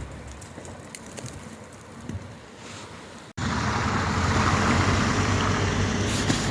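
Quiet outdoor ambience with faint scattered ticks, then an abrupt cut about three seconds in to a louder, steady rushing noise with a low rumble.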